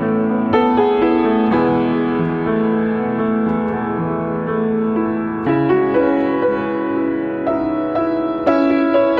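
Yamaha upright piano played slowly in a soft improvisation: held chords ringing over one another, with new notes struck every second or few.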